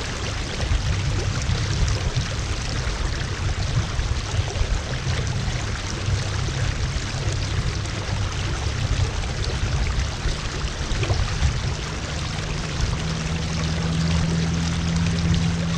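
Water rushing and splashing along the hull of a fishing kayak moving across calm water, with a low rumble under it. A steady low hum joins about thirteen seconds in.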